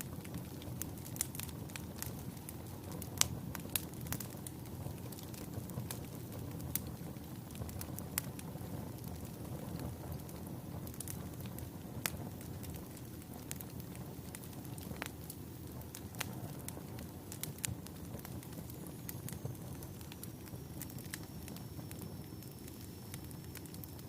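Wood fire burning in a fireplace: a steady low rumble of flames with sharp crackles and pops scattered through it, coming thicker in the first half.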